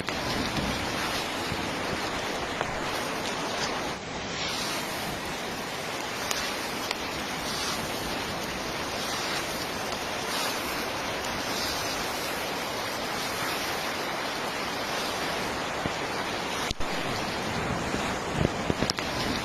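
Hailstorm: a dense, steady roar of hailstones falling and striking the surroundings, with a few sharper individual hits standing out near the end.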